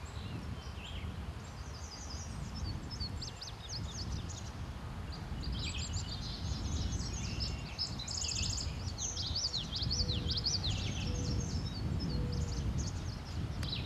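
Songbirds chirping and singing outdoors: scattered calls at first, then a dense chorus of quick rising and falling notes, over a steady low outdoor rumble.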